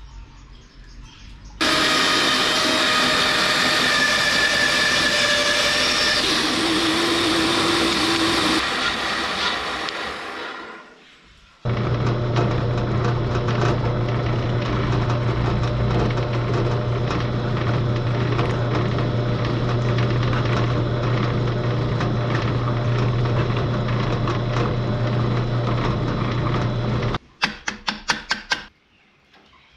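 Bench drill press running and boring into a wooden block. A first run of several seconds winds down; after a short gap comes a longer steady run with a low motor hum, which cuts off suddenly near the end. A few sharp clicks follow.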